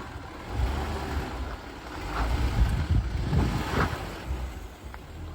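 Wind buffeting the microphone in gusts over the low, steady rumble of an off-road vehicle.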